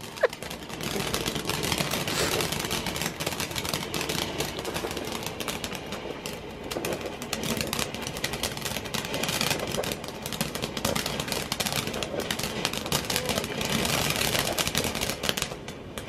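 Ground firework fountain burning, a steady hiss of spraying sparks packed with dense crackling.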